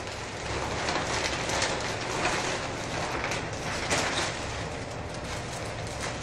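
Plastic packaging rustling and crinkling as clothes sealed in clear polybags are pulled out of a poly mailer bag, a busy crackle that eases off in the last couple of seconds.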